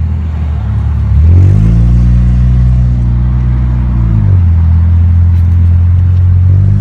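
Loud car engine and exhaust heard from inside the cabin while driving. The engine note climbs about a second and a half in, holds, then drops a little past four seconds.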